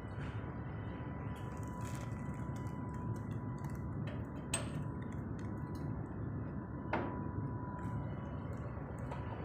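Steady low machinery hum with a thin steady whine, broken by a few sharp metallic clicks, the clearest about four and a half and seven seconds in.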